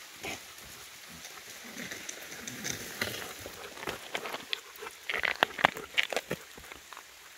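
Close sounds of an Inuit sled dog moving about: irregular rustles and sharp clicks, with a louder cluster about five to six seconds in.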